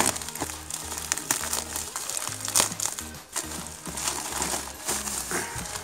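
Plastic USPS mailer crinkling and crackling as hands grip and pull at it to open it, with background music carrying a steady bass line underneath.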